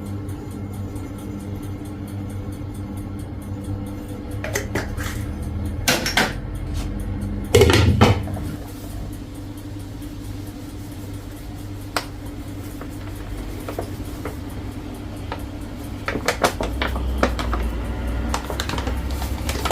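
Kitchen work: dishes and utensils knocking and clattering in scattered bursts, the loudest about halfway through, over a steady appliance hum.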